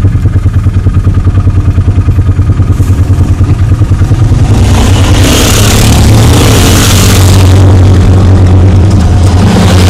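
ATV engines running: a nearby engine idles with a fast, even throb, then from about four and a half seconds quad bikes and a side-by-side buggy drive past close by, their engines louder over a rushing hiss.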